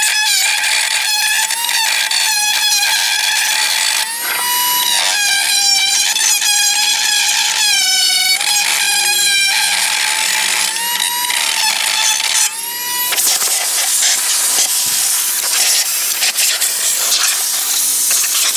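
A tool scraping old gasket material out of the sealing groove in a Northstar V8's oil pan. It squeals, high and wavering in pitch, in short strokes. About 13 seconds in the squeal gives way to a rougher, noisy scratching.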